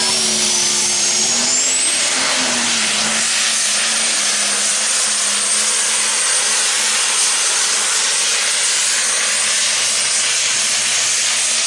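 Super stock diesel pulling tractor at full throttle hauling a sled down the track: a loud, steady engine roar with a thin high whine that climbs over the first couple of seconds and then holds.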